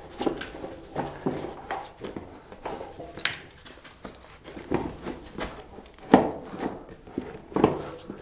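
Studded Vee Tire Snow Avalanche fat-bike tyre being worked onto its rim by hand: irregular knocks and rubbing of rubber against the rim, with sharper knocks about six seconds in and again near the end.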